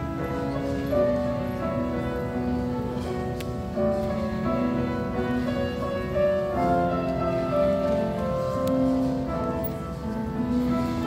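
Grand piano playing live, a gentle passage of held notes and chords.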